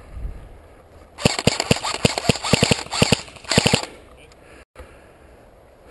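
Airsoft guns firing rapid strings of shots in several bursts, starting about a second in and lasting about two and a half seconds.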